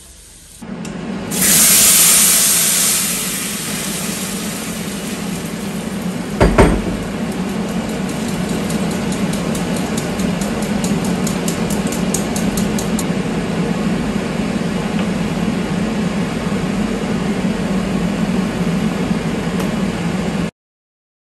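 Strained tomato purée poured into a hot clay cazuela on a gas burner. It hits the hot pot with a loud sizzle about a second in, then fries with a steady sizzle and a low hum. One knock about six seconds in.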